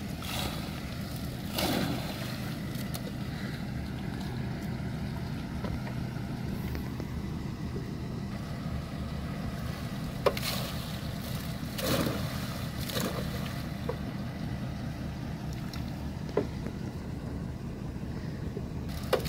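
Steady low drone of a fish-stocking truck running at the water's edge, with a few brief splashes and knocks as netfuls of rainbow trout are tipped from its tank into the pond.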